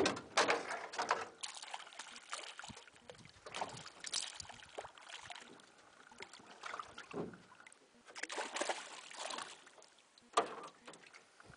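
Water splashing and knocking around a small boat, in irregular bursts, with a sharp knock at the start and another about ten seconds in.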